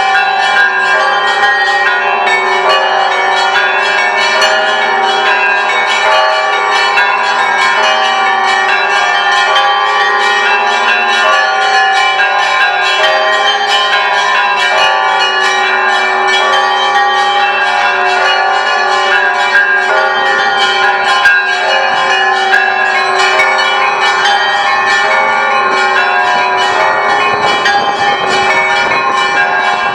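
Orthodox church bells of the Great Lavra Bell Tower ringing: many bells of different sizes struck in a rapid, continuous pattern, small bells chiming quickly over the ringing of deeper bells. About two-thirds of the way through, the steady deep tones of the lowest bells give way to looser, uneven low strokes.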